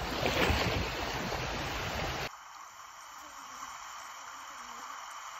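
Shallow seawater sloshing and splashing around the legs of someone wading. About two seconds in it cuts off suddenly, leaving a faint steady hiss.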